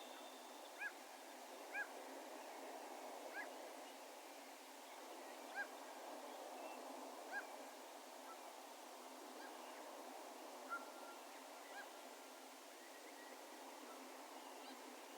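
Distant bird calls, short and pitched, sounding about seven times at uneven intervals, echoing faintly over a steady low background hiss.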